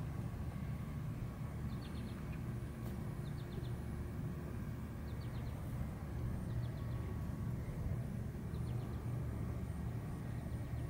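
Outdoor ambience: a steady low rumble, with a small bird repeating a quick three- or four-note chirp every couple of seconds.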